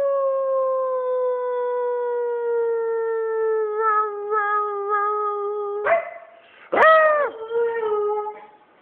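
Siberian husky howling: one long howl that slowly falls in pitch and wavers near its end, then, after a short break, a second, shorter howl that rises and falls.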